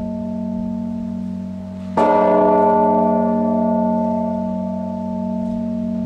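Church bell striking the midday hour with slow single strokes: one stroke about two seconds in, over the long hum still ringing from the stroke before.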